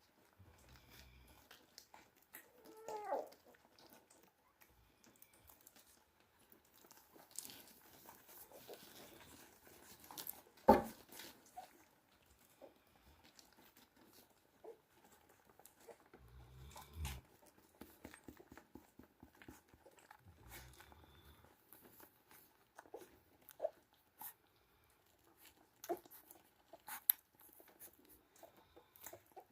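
Cane Corso puppy sounds: a short wavering whine about three seconds in, amid scattered soft clicks and crunching. There is one sharp knock near the middle.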